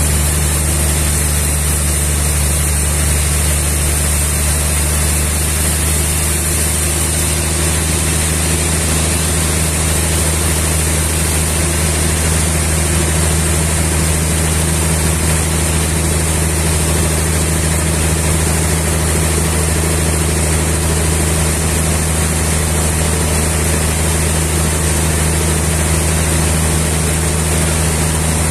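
Sawmill engine running steadily at a constant speed: an even low hum with a steady hiss above it, with no change in load.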